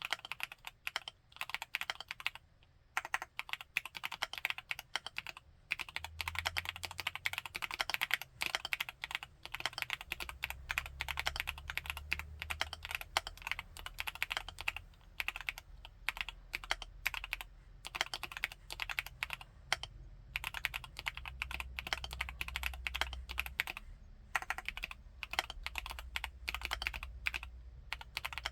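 Typing on a Createkeebs Luminkey75 mechanical keyboard with Gateron Baby Raccoon switches. A few scattered keystrokes come first, then fast, continuous typing starts about six seconds in, broken by a few brief pauses.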